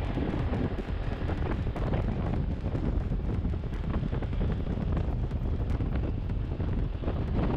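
Motorbike riding: wind buffeting the action camera's microphone over a steady low engine and road rumble.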